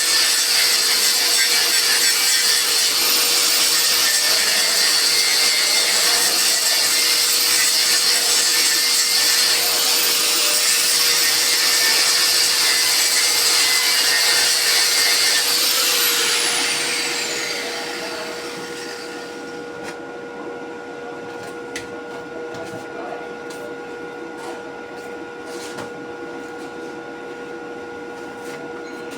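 A high-speed electric power tool, grinder-type, running against material with a steady high whine. About sixteen seconds in it is switched off and winds down in a falling whine, leaving a steady electrical hum with a few light clicks.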